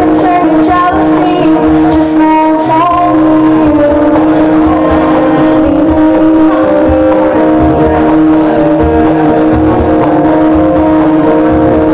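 Live acoustic music: a woman singing over a strummed acoustic guitar, backed by hand percussion with a low, steady beat. The voice drops out about three seconds in, and the guitar and percussion carry on alone.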